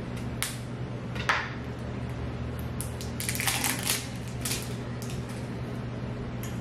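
Plastic seasoning shaker being opened and handled: a few sharp clicks, and a burst of scratchy crinkling about three seconds in.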